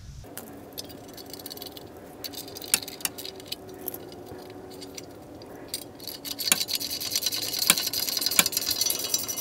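A nylock nut being run onto a new lower ball joint's stud with a hand tool: scattered metal clicks and clinks, turning into a dense run of rapid clicking for about the last three seconds.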